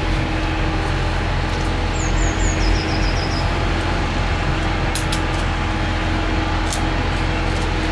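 Steady drone of jet aircraft engines, with several steady hum tones under a broad rush. A short run of faint high chirps comes about two seconds in, and a few sharp clicks come near five and seven seconds.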